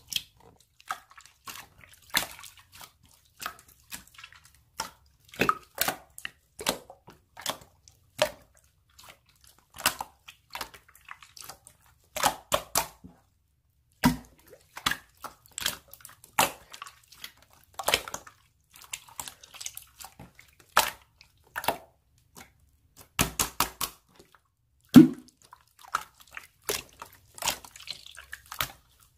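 Slime being pressed and squished by hand, making irregular wet pops and clicks, several a second.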